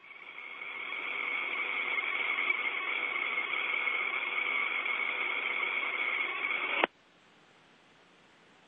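Open-channel radio static on the Soyuz crew's radio voice link: a steady hiss with a whistle-like tone in it, swelling over the first couple of seconds, then cut off abruptly with a click about seven seconds in, leaving only faint hiss.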